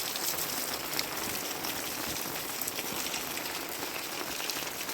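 Heavy rain falling steadily, with scattered ticks of individual drops.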